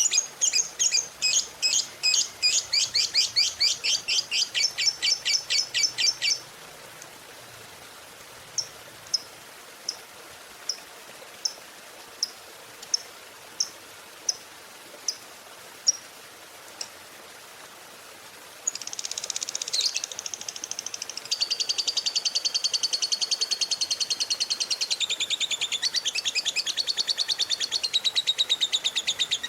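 Lovebird calling: a fast run of sharp, high chirps, then single chirps at a slow even pace, then, from about two-thirds of the way in, a long unbroken rapid chattering trill of the kind keepers call ngekek.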